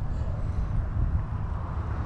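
Wind buffeting the microphone outdoors: an uneven low rumble that comes and goes in gusts.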